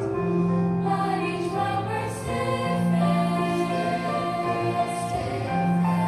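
Mixed youth chorus singing in long held chords that shift to new notes every couple of seconds.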